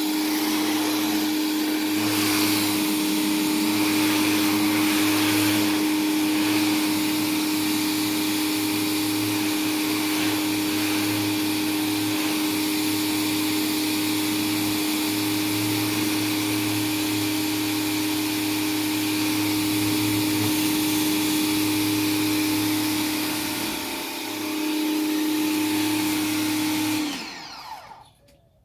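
Pressure washer running steadily, its wand spraying water against house siding with a constant hiss over the pump's steady hum. Near the end the machine winds down, its pitch falling, and stops.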